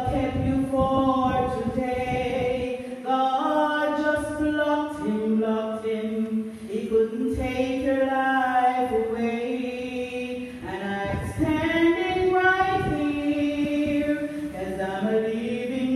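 A woman singing a solo song of meditation, a slow melody with long held notes.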